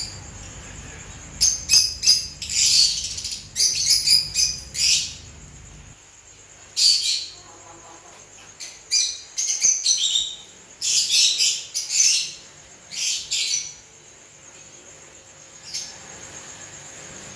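Lovebirds giving shrill, high-pitched chirps in quick bursts, several clusters of calls with short pauses between them.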